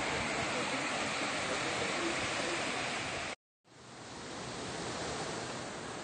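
Waterfall and rocky stream water rushing in a steady, even roar. The sound cuts out completely for a split second about halfway, then fades back in.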